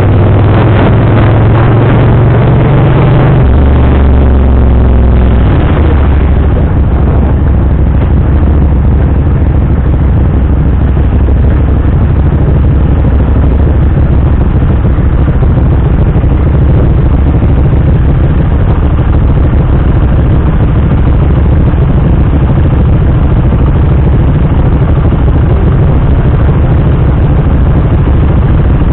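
650 cc cruiser motorcycle engine easing off from riding speed, its tone dropping about three seconds in, then idling steadily at a standstill.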